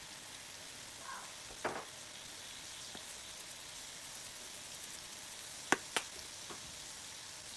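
Pieces of beef frying in a pan of hot oil, a steady sizzle. A utensil clicks against a pan once early and twice in quick succession near the end.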